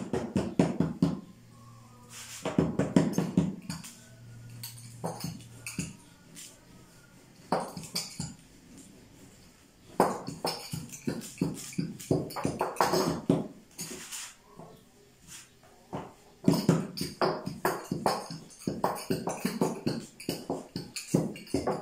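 A thin wooden rolling pin rolling out dough on a wooden board, clattering in bursts of rapid clicks and knocks with short pauses between.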